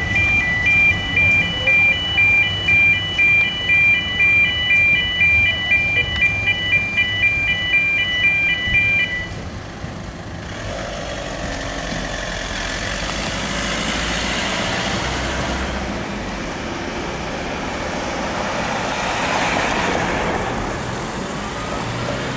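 Level-crossing warning alarm beeping about twice a second, stopping about nine seconds in; after it stops, road traffic starts up again and cars pass over the crossing.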